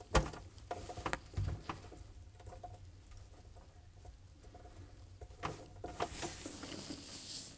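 Faint clicks and rustling of hands working the clip off a GE refrigerator defrost sensor and handling its wire. There is a cluster of sharp clicks in the first second or so, and a few more near the end.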